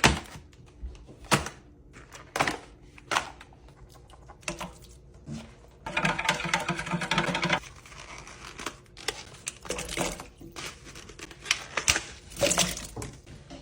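Household objects being handled: scattered knocks and clicks, with about a second and a half of rustling, crinkling packaging about six seconds in.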